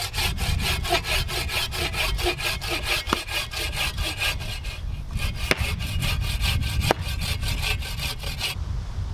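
Hand bow saw cutting through a log on a wooden sawbuck in quick, even strokes, about five a second, with a short break about five seconds in; the sawing stops near the end. A few sharp clicks come through the strokes.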